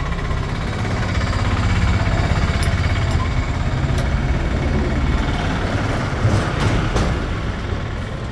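Bajaj Pulsar 125's single-cylinder engine idling steadily after its oil change, with a few light clicks.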